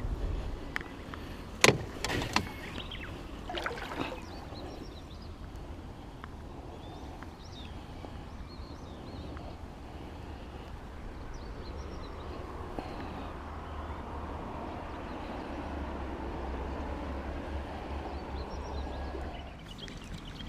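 Water sloshing and trickling around a small float boat on a river, with a few sharp knocks and clicks in the first four seconds.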